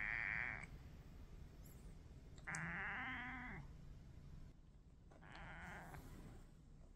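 Brown tabby cat giving short, raspy, bleat-like calls: one ends just after the start, a louder one comes about 2.5 s in and a fainter one about 5 s in.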